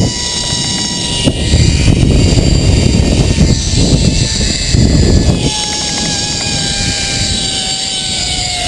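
Zipline trolley pulleys whining along the cable under heavy wind rush on the microphone. From a little past halfway the whine glides steadily down in pitch as the trolley slows toward the far end of the line.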